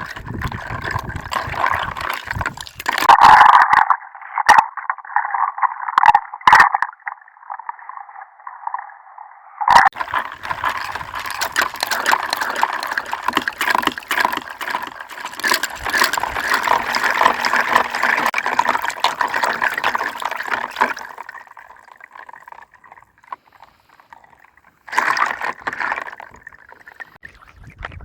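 Water gurgling and bubbling in uneven bursts, with a lull of a few seconds near the end.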